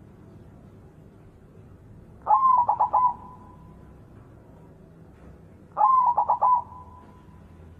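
White zebra dove (perkutut putih) cooing: two short phrases of quick staccato coos, about three and a half seconds apart, each opening on a rising note and trailing off into a faint held tone.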